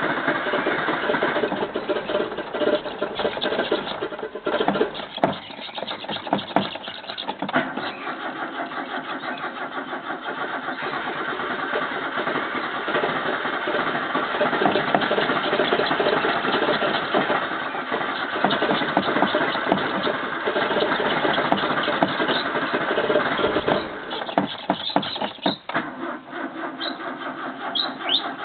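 Starter cranking the carburetted engine of a 1985 Toyota Corolla while it struggles to start, the level rising and falling unevenly and stuttering near the end. A hard cold start, which the owner puts down to the choke not being on.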